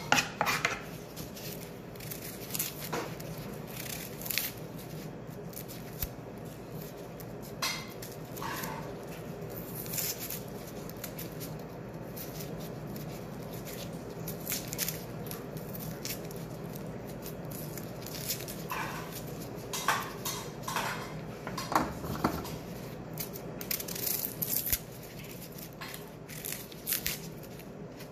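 Kitchen knife and gloved hands working over a cutting board: scattered knocks, taps and scrapes as vegetables are handled and an onion is peeled, over a steady low hum.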